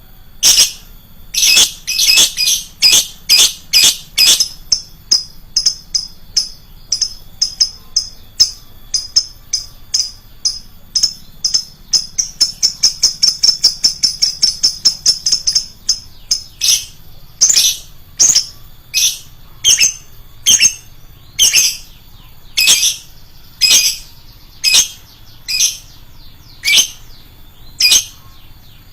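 Lovebird calling with shrill chirps, one or two a second, that speed up midway into a fast run of short chirps, then slow back to loud single calls.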